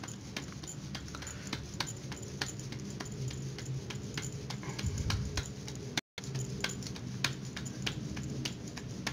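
Wet palms patting and pressing maize-flour dough, shaping a makki ki roti by hand: soft, irregular pats, about three or four a second, over a low steady hum.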